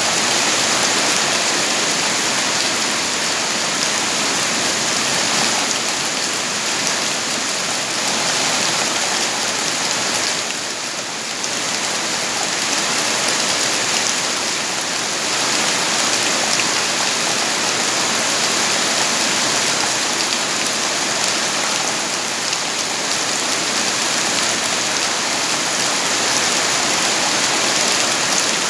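Steady, dense rain falling, an even hiss that eases briefly about ten seconds in before picking back up.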